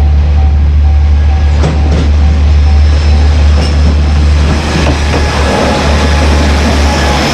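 KiHa 40-series diesel railcar running past a level crossing, its engine giving a heavy low drone and its wheels clicking over the rail joints. The crossing's warning bell rings in a fast repeating clang behind it and fades after the first few seconds.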